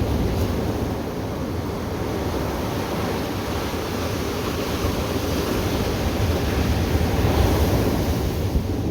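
Ocean surf washing ashore in a steady rush, swelling a little about seven seconds in, with wind rumbling on the microphone.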